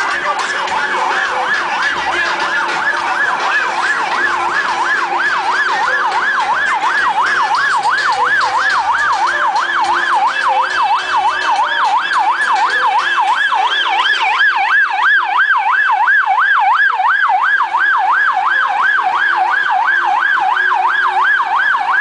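Electronic siren on a caravan vehicle sounding a fast warble, its pitch sweeping up and down about four times a second, a little louder in the second half.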